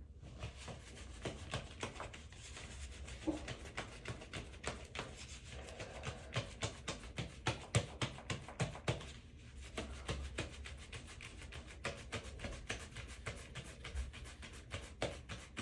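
Irregular small clicks and rubbing from hands handling things close to the microphone, with faint background music.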